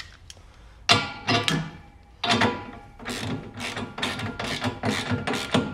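Socket ratchet on an extension tightening a steel sidebar bracket bolt: a couple of metallic clinks with a ringing tone about one and two seconds in, then a steady run of ratchet clicks at about three a second.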